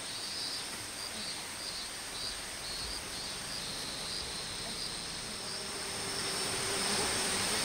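Insects calling: a steady high buzz with short high chirps repeating about twice a second. A faint hiss swells in the last second or two.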